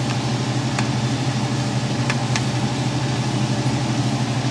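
A steady low hum runs throughout, with a few faint light clicks of a serving spoon scraping a baking dish.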